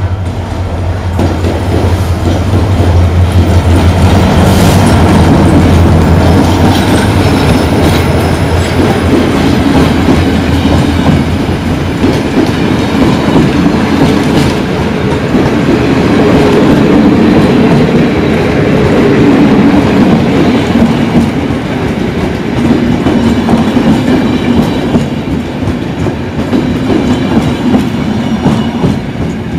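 A locomotive-hauled passenger train passes close by. The locomotive's low, steady hum fills the first several seconds, then the coaches roll past with a clickety-clack of wheels over the rail joints and a light wheel squeal.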